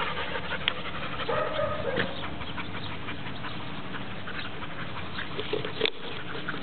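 A dog panting, with a short pitched call about a second and a half in and a sharp click near the end.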